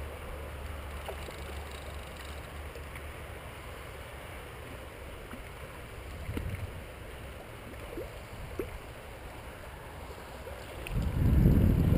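Shallow river water running steadily, with a few faint clicks. About a second before the end, wind starts buffeting the microphone with a loud low rumble.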